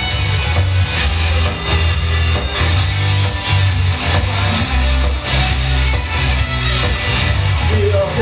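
Rock music: an instrumental passage led by guitar over a moving bass line, with no vocals.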